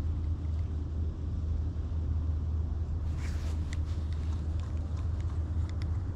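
Steady low rumble, with a few faint clicks and a brief rustle about three seconds in.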